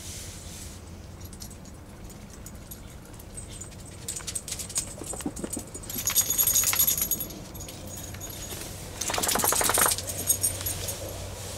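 Metal dog chain clinking and jangling in short bursts as the dog moves, loudest about six seconds in and again about nine seconds in, over a steady low hum.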